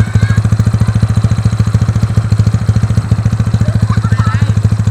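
Yamaha Mio scooter's single-cylinder engine, freshly rebuilt and not yet run in, idling steadily with a loud, even exhaust beat.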